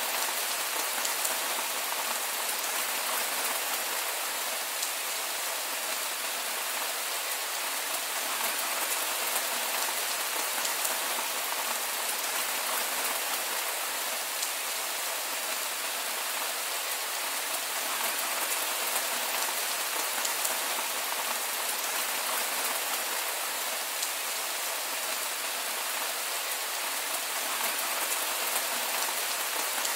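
Heavy rain falling steadily, an even hiss of countless drops with no thunder.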